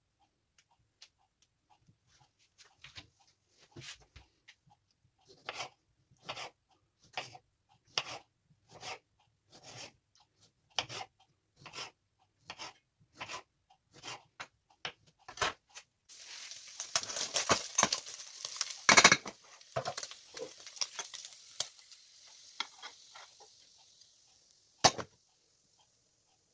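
Knife cutting cherry tomatoes on a wooden chopping board, a sharp cut every second or so. Then a pan clatters under a hiss of frying that fades away, with one sharp knock near the end.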